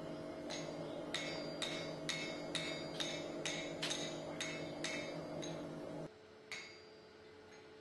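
Hand hammer forging a hot steel axe head on an anvil: about a dozen blows at roughly two a second, each with a bright metallic ring, then a pause and a single last blow. A steady low hum underneath cuts off about six seconds in.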